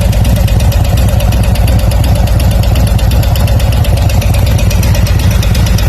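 Harley-Davidson V-twin engine idling steadily, with a fast, even ticking running through the idle. This is the kind of tick that can point to failing lifters.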